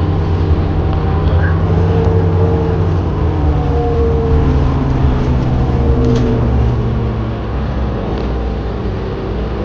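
Steady low rumble of a car running and rolling along the road.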